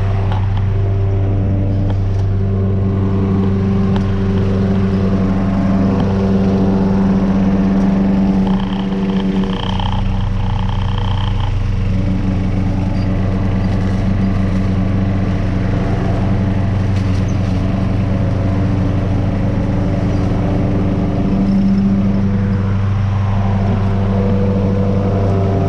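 A tractor's engine and a lawnmower mounted on the tractor running steadily while mowing. The engine note shifts briefly about ten seconds in.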